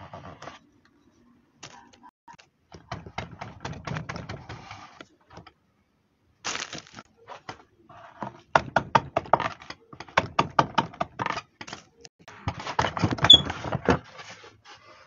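Hand carving gouge cutting into a wooden board: short crisp clicks and crunches as the blade shears through the wood fibres and chips break away, in bursts of strokes about three a second, with a denser, louder run of cuts near the end.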